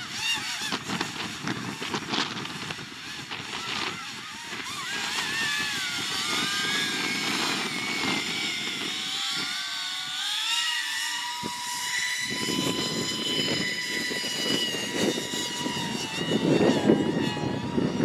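Electric ducted fan whine of an FV-31 Cypher RC VTOL jet, its pitch sliding up and down with the throttle and then holding steadier. Gusty wind rumbles on the microphone throughout, dropping away for about two seconds midway and returning stronger near the end.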